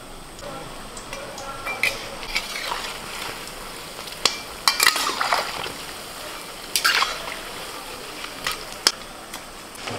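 Battered chops deep-frying in a steel karahi of hot oil, sizzling steadily, while a metal slotted spoon stirs and turns them, clinking sharply against the pan several times around the middle and once near the end.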